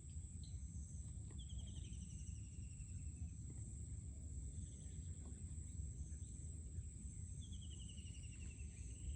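Forest ambience: a steady high-pitched insect drone, with a bird twice giving a descending trilled call and fainter chirps, over a constant low rumble.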